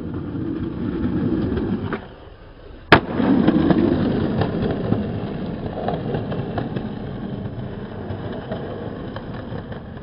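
Skateboard wheels rolling over concrete, with one sharp crack of the board about three seconds in; afterwards the rolling is louder and slowly fades.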